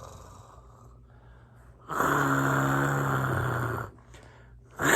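Pretend snoring voiced by a person: a long, loud snore beginning about two seconds in, and another starting near the end, with a faint breath between.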